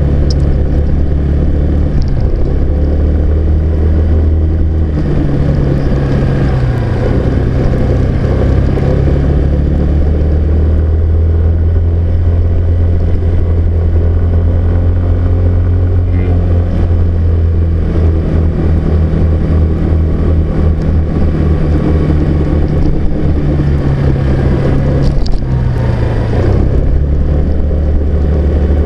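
A car's engine running steadily under road and tyre noise while driving, its low hum shifting in pitch a few times and dipping then rising again near the end.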